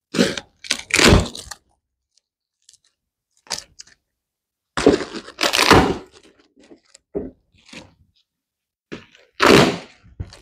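Packaging and product being handled by hand: irregular bursts of knocks, thuds and crackling, the longest about five seconds in and another loud one near the end.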